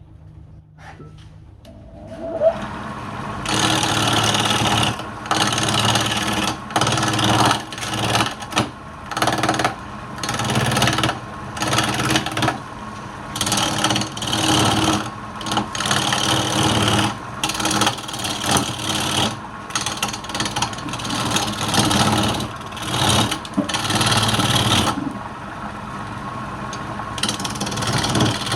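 Wood lathe running with a turning tool worked against the spinning wood in repeated passes, each cut a loud scraping hiss of about a second over the machine's steady hum.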